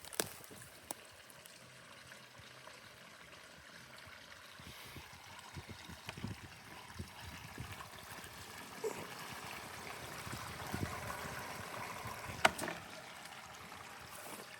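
Water trickling and flowing, growing louder in the second half, with a few light knocks and one sharp click near the end.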